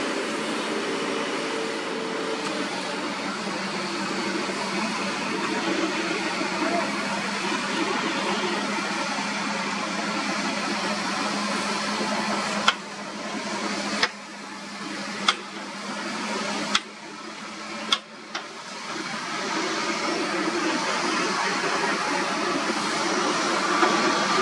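Heavy diesel machinery running: an excavator's and a dump truck's engines give a steady drone with a low hum. About five sharp knocks come between about 13 and 18 seconds in.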